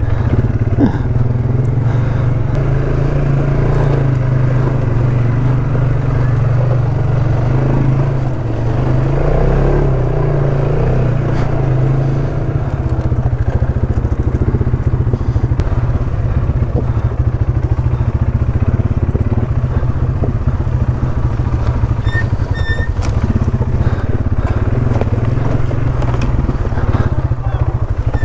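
ATV engine running steadily while riding a rough trail, with scattered knocks and rattles.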